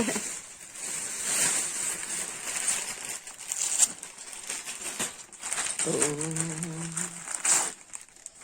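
Wrapping paper rustling, crinkling and tearing in irregular bursts as a present is unwrapped.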